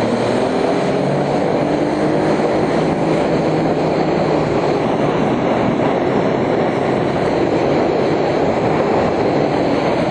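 Jet ski engine running steadily under way, mixed with the rush of water and wind noise.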